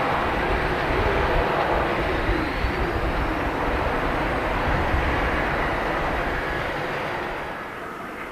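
Boeing 737-700's twin CFM56-7B jet engines running loud as the airliner rolls out on the runway after landing, a dense rushing jet noise with a faint rising whine about a third of the way in. The noise fades away over the last couple of seconds.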